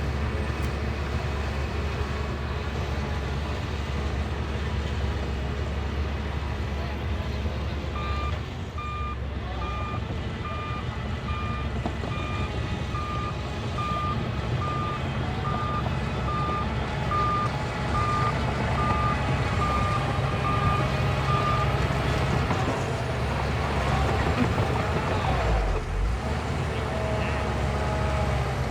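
Shantui bulldozer's diesel engine running steadily. About eight seconds in its reversing alarm starts beeping about once a second, for roughly thirteen seconds, as the dozer backs up.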